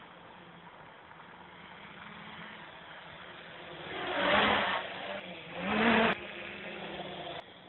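Armattan CNC-355 quadcopter's brushless motors and propellers buzzing steadily in flight. They swell loud twice as it throttles up close by, about four seconds in and again near six seconds, the second burst rising in pitch.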